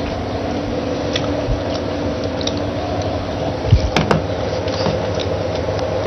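Steady background hum from the microphone feed, with a few light knocks and clicks about two thirds of the way in.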